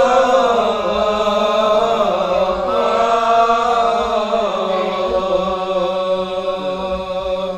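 A man chanting a verse of a Malay hikayat in the Sasak nembang style, one voice through a microphone, drawing out long notes that bend slowly in pitch. The chant ends near the end.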